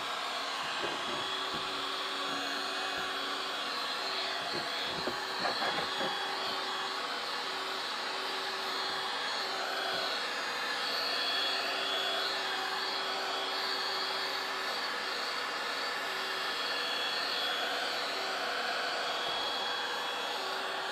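Ryobi One+ 18V cordless heat gun running, its fan blowing steadily, with a few light knocks about five seconds in.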